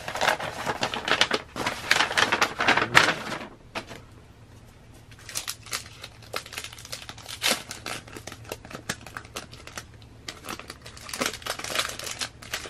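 Kraft paper envelope and plastic photo-card sleeves being handled, rustling and crinkling. The crinkling is dense for the first three seconds or so, then turns into sparser crackles and taps, with a busier stretch again near the end.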